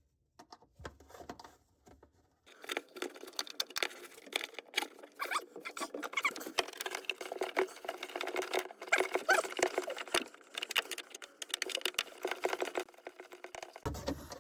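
A rusty screw being backed out with a hand screwdriver: a long, irregular run of scratchy clicks and squeaks as the screw grinds in its hole. It starts a couple of seconds in and stops about a second before the end.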